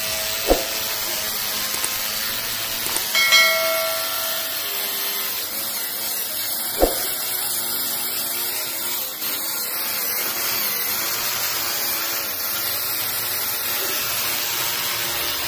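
Electric drill with a side handle boring a fixing hole into a ceramic-tiled wall, a steady high whirring noise, with two sharp clicks, one near the start and one about halfway, and a brief squeal about three seconds in.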